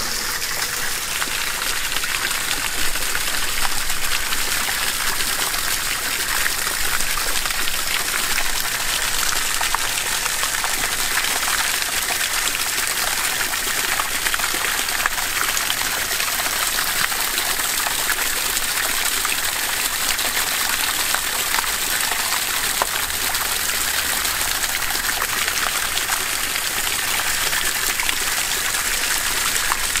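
Steady gush of pumped well water spraying out of a PVC pipe outlet and splashing onto leafy plants.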